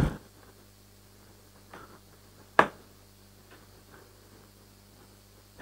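Handling noise from a selfie stick tripod being unwrapped and turned over in the hands: a brief thump and rustle at the start, then one sharp click about two and a half seconds in, with a few faint small clicks after it. A faint steady low hum runs underneath.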